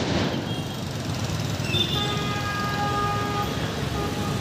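Street traffic with a vehicle horn: one held honk of about a second and a half a couple of seconds in, and a short honk near the end. The tail of a firecracker bang fades away at the very start.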